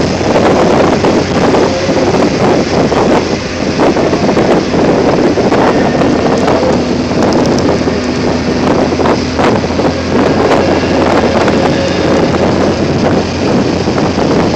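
Wind buffeting the microphone of a moving MGB, with its engine and tyre noise running steadily underneath at road speed.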